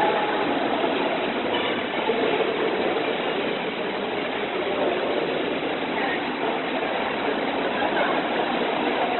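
Steady background noise of an indoor swimming pool hall: an even rush with no distinct events.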